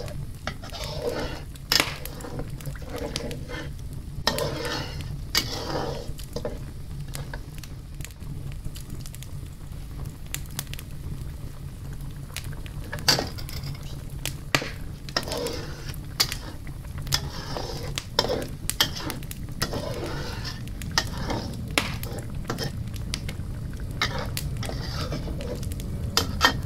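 A utensil stirring curry sauce in a wok, clinking and scraping against the pan every second or so, over a steady low hum.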